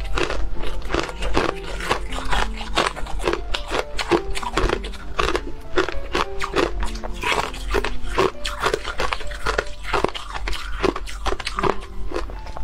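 Ice coated in cocoa powder being bitten and chewed close to the microphone: a quick run of sharp, crunchy cracks a few times a second, over background music.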